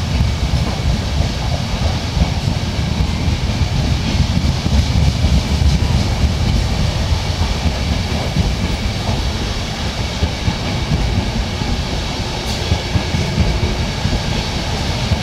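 Passenger coaches of a train rolling past: a steady low rumble of wheels on the rails, with a few faint clicks from the wheels passing over rail joints.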